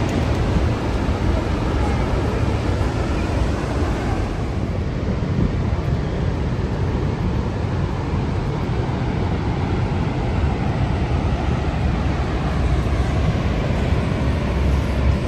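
Niagara Falls: the constant rush of heavy falling water, a deep, steady noise with no breaks. It turns duller about four seconds in.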